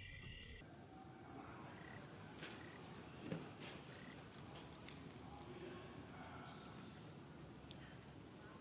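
Steady, high-pitched insect chorus with a fine pulsing texture, starting just under a second in. A few faint clicks sound over it, the loudest about three seconds in.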